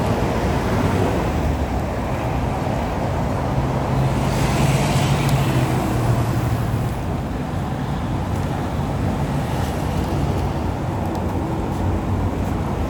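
Steady low rumble of motor vehicle or road traffic noise, with a brighter hiss swelling about four to six seconds in, as of a vehicle passing.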